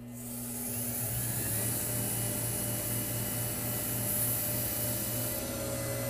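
Small wood lathe running with a steady motor hum, coming up to speed over the first second, while sandpaper is held against the spinning wooden pen blank, adding a high hiss.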